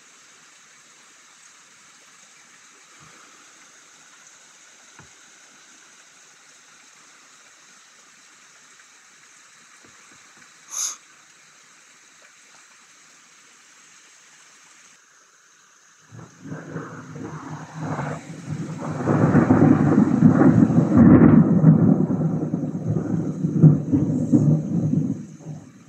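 Steady hiss of rain with a single short sharp click about ten seconds in; then, from about sixteen seconds, a long loud roll of thunder that builds, peaks and fades out near the end.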